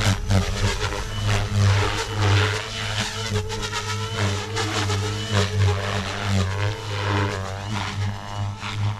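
XLPower Protos 380 electric RC helicopter in flight: its motor and rotor hum with a whine and blade swish whose pitch keeps rising and falling as it is thrown through manoeuvres.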